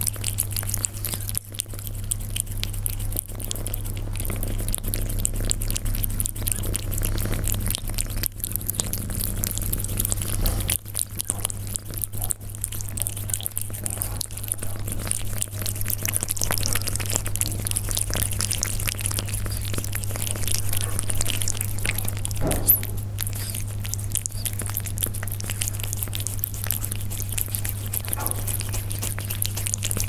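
Persian cat eating close to the microphone: continual irregular chewing and crunching clicks, over a steady low hum.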